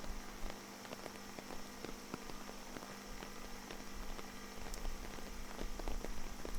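Raindrops pattering on an umbrella close to the recorder, many small separate taps over a hiss of rain, with a faint steady low hum underneath.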